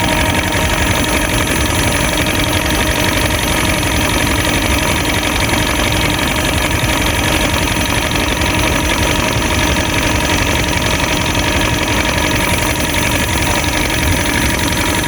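Small fishing boat's gas outboard motor running steadily, with no change in speed. Its cover is left off because fitting it pinches the fuel line.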